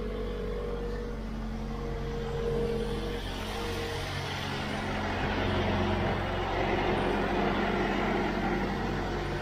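Jeep JL Wrangler engine idling steadily, a low hum with steady tones, growing louder in the second half as the open engine bay is neared.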